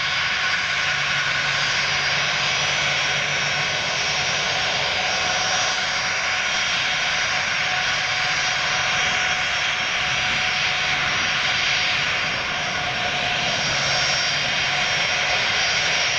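Ilyushin Il-76TD's four Soloviev D-30KP-2 turbofan engines running at taxi power as the jet rolls slowly: a steady rushing noise with several high whining tones held level throughout.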